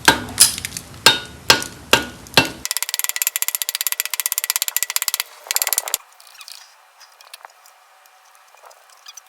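Hammer blows on a Type 4 VW engine's cylinder head to break it loose: six sharp ringing strikes about two a second. Then a fast, even clicking for about three seconds, and faint light clicks after it.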